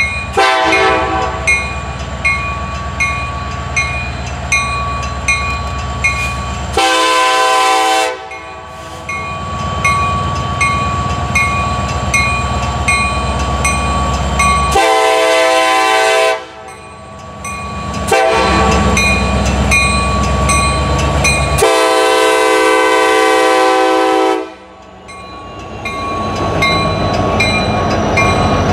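Union Pacific diesel freight locomotives, led by an SD70ACe, approaching with the air horn sounding three long blasts, the last held longest, over a steady engine rumble and a regular ticking about twice a second. Near the end the locomotives pass close and the rumble of engines and wheels on the rails swells.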